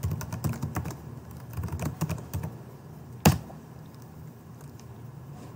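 Computer keyboard typing: a quick run of keystrokes over the first two and a half seconds, then one louder single click a little after three seconds.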